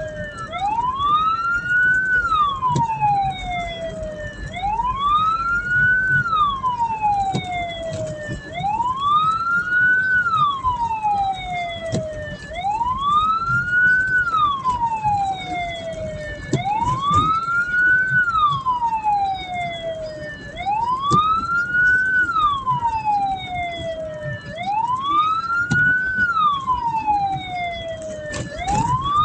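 Hearse siren wailing. It rises and falls slowly, about once every four seconds, over the low rumble of the moving vehicle. A fainter, higher siren sweeps out of step with it.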